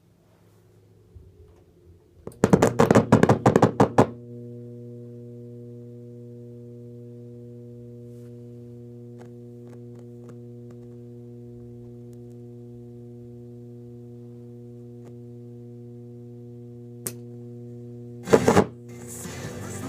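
Clairtone boombox faulting: loud crackling for about two seconds, then a steady hum for about fourteen seconds, another short burst of crackle, and music starting to come through near the end. The crackle and hum are the sound fault the set is being shown for.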